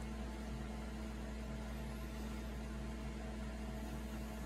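Steady low hum with an even hiss, unchanging throughout: the constant background noise of a running appliance in a small room.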